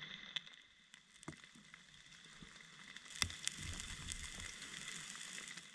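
Small tinder fire of pitch-wood (fatwood) shavings catching, faintly crackling with scattered sharp ticks, fuller and louder from about three seconds in as the flame takes hold.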